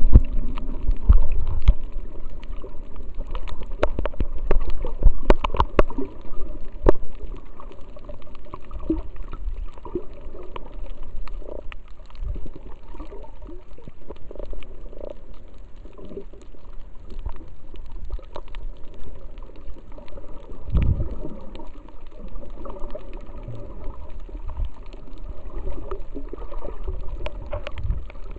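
Underwater water noise picked up by a submerged camera moving along a coral reef: a steady muffled rush with scattered sharp clicks, densest between about three and seven seconds in, and low thuds near the start and again about two-thirds of the way through.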